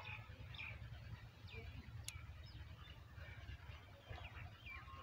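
Small birds chirping faintly on and off, short separate chirps over a low rumble of microphone noise, with one sharp click about two seconds in.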